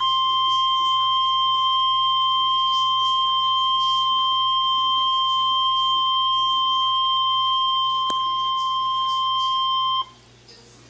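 Emergency Alert System attention tone for a tornado warning: one loud, steady single-pitch alarm tone, the weather-radio Warning Alarm Tone, held for about ten seconds before cutting off sharply.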